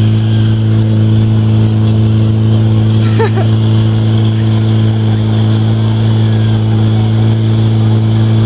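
Fire-sport portable fire pump engine running steadily at constant high speed, one unchanging drone with no rise or fall, while the hose attack is under way.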